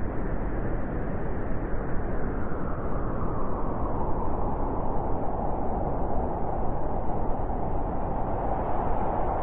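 Blizzard wind blowing steadily, a dense rushing noise, with a higher howl building in it from about three seconds in.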